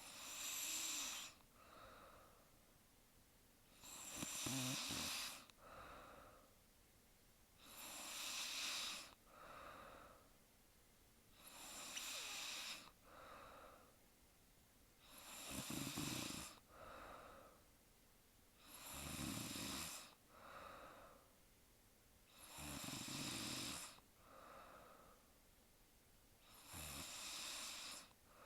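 A young woman snoring steadily in her sleep, about eight snores at a slow, even pace of one every three to four seconds. Each loud, noisy snore, several with a low buzz underneath, is followed a second later by a shorter, softer breath.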